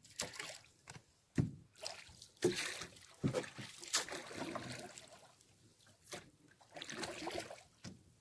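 Water dripping and splashing off a wet fishing net as it is pulled by hand out of the lake over the side of a rowboat, with a few sharp knocks among the irregular splashes.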